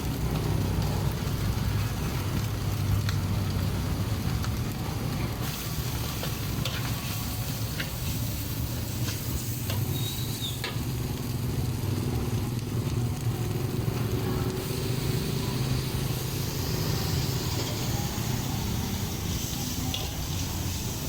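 Food sizzling as it fries, with scattered clicks of a utensil as it is stirred, over a steady low rumble.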